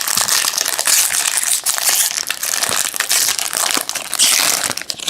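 Loud, continuous crinkling and crumpling of a trading-card pack's foil wrapper being handled and opened, with many sharp crackles. It stops abruptly at the end.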